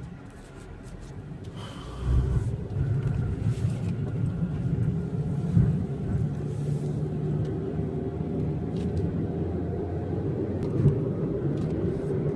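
Car engine and road noise from inside a moving car: a steady low rumble that grows louder about two seconds in.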